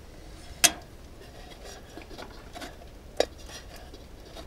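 A metal camping cook pot's lid and wire bail handle clinking: two light clinks, one under a second in and one about three seconds in with a short metallic ring.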